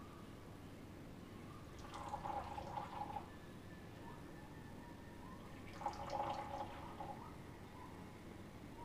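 Tea poured from a glass pitcher into small tea cups, in two short pours of about a second and a half each, splashing and trickling.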